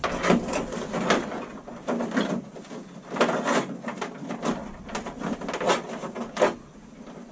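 Hands handling small parts and tools at close range: a steady run of irregular clicks, clacks and rustles.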